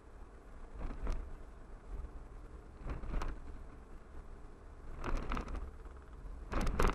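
Low, steady road and engine rumble of a car driving slowly, heard from a dashboard camera inside the cabin, with four short rushes of noise about two seconds apart, the last the loudest.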